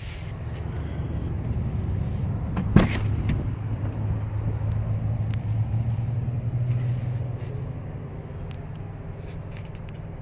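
A motor vehicle's engine running with a low rumble that swells over several seconds and then fades. There is a sharp click about three seconds in.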